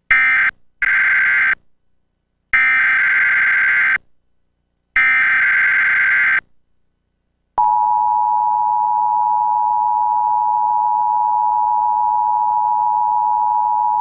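Emergency Alert System broadcast: three bursts of screeching digital SAME header data, then the steady two-tone attention signal (853 and 960 Hz together) starting about halfway through. Together they announce an emergency alert, here a Required Monthly Test.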